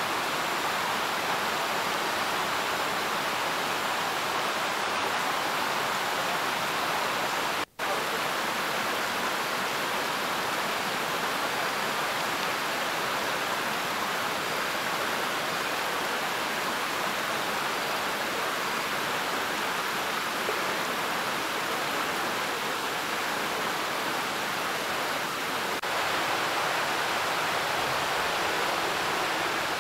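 Steady rush of falling water from a waterfall, an even hiss that drops out for an instant about eight seconds in.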